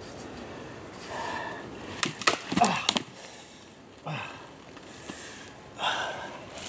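A person breathing hard and groaning while struggling through woodland undergrowth, with a quick run of sharp twig and branch cracks about two seconds in.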